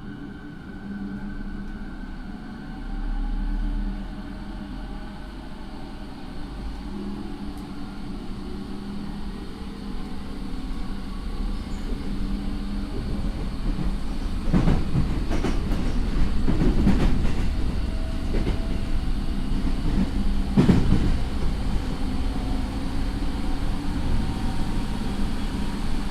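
Inside a JR 209 series electric train car with a Mitsubishi IGBT inverter and MT68 traction motors, running and gathering speed. A faint motor tone rises slowly over a low rumble that grows louder. Several sharp knocks from the wheels come past the middle, the loudest about 20 seconds in.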